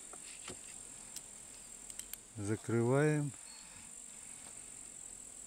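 Steady high-pitched chirring of insects in the background. A few faint clicks come from handling the hand-held refractometer.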